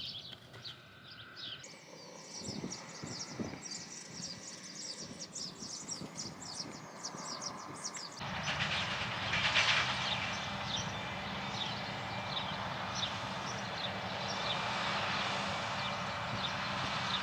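Birds chirping repeatedly in short calls. About eight seconds in, the steady running of a tractor engine comes in, and the chirping carries on over it.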